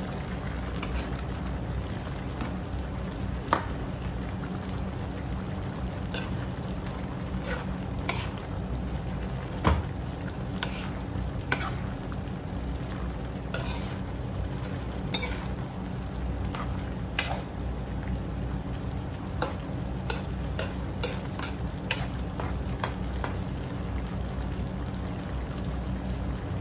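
Metal ladle stirring a simmering igado stew in a wok, with irregular clicks and knocks of the ladle against the pan over a steady sizzle from the hot stew.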